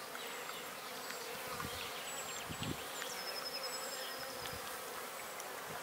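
Honeybees buzzing around the entrance of a wooden beehive: a steady hum of many bees.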